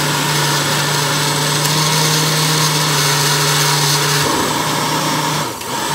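Oster 6812-001 blender with its glass jar running steadily, blending a thick red fruit mixture. Near the end it is switched off and the motor begins to wind down, its hum falling in pitch.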